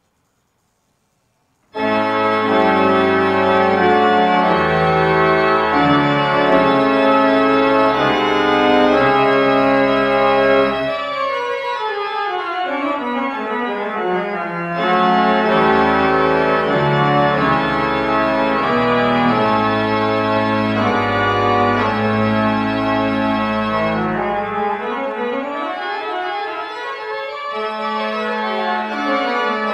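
Church pipe organ playing a prelude in full, sustained chords over a deep pedal bass, starting about two seconds in; the bass drops out for a few seconds in the middle and again near the end.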